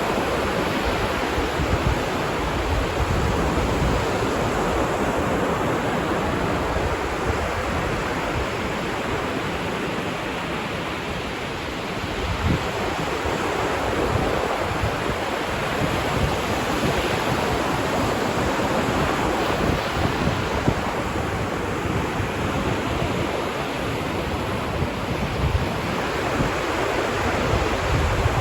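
Ocean surf washing onto a beach, a steady rushing of waves that swells and eases slowly over several seconds, with some wind buffeting on the microphone.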